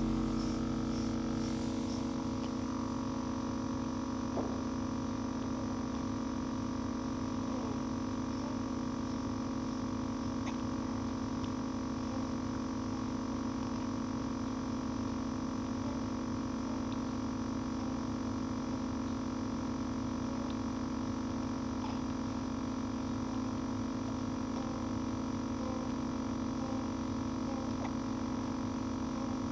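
A steady electrical hum runs throughout. Over it come faint, brief hiccups every five or six seconds from someone napping; the clearest is about four seconds in.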